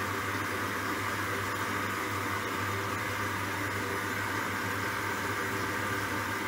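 Candy Grand O Vita front-loading washing machine with its drum at rest: a steady hiss of water inside the machine over a low, even hum.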